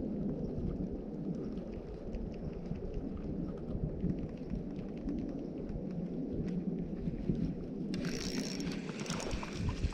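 Wind buffeting the microphone as a steady low rumble, with a brighter hissing noise joining about eight seconds in.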